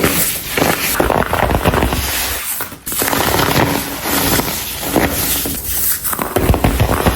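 Dried chunks of baking soda being crumbled and crushed, a dense crackling crunch with a brief break a little under halfway through.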